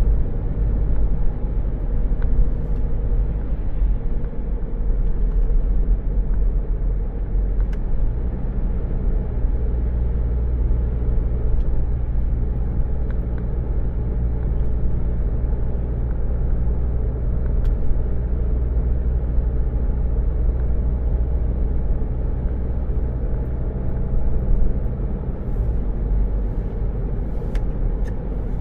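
Car engine and road rumble heard from inside the cabin: a steady low rumble with a constant engine hum.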